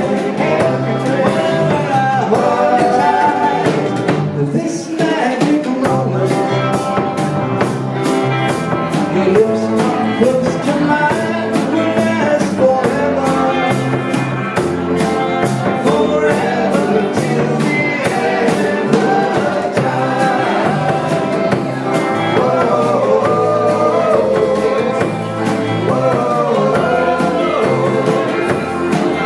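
Live vintage rock and roll band playing, with a singer over the band and a steady drum beat; the music breaks briefly about four seconds in.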